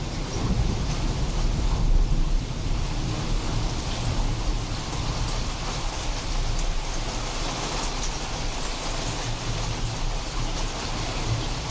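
Steady rain falling during a thunderstorm, with a low rumble of thunder fading over the first couple of seconds.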